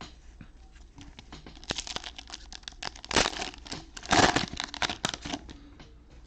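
Cellophane wrapper of a football trading card cello pack crinkling and tearing open, with the loudest rips about three and four seconds in.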